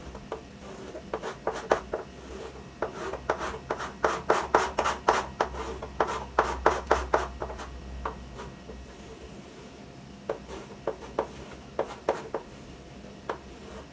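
Chalk stroked rapidly back and forth on a chalkboard, shading in a drawing: a quick run of short strokes, thickest in the middle and sparser near the end.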